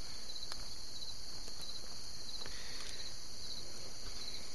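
Steady, high-pitched chorus of insects chirring, with a few faint clicks.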